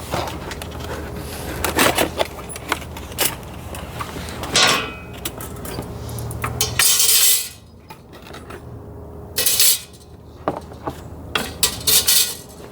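Metal grill-insert pieces and skewers clinking and knocking together as they are unpacked and handled, with a few short, louder rustling scrapes.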